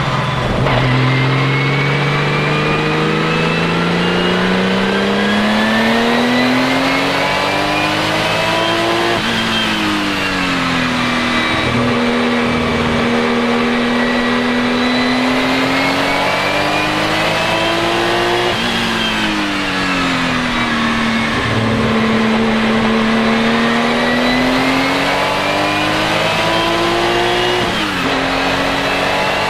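Porsche 935 K3's turbocharged flat-six under hard acceleration, the revs climbing slowly through long pulls. The pitch drops sharply at three gear changes, about a third of the way in, about two thirds in and near the end, and in between the revs sag and pick up again.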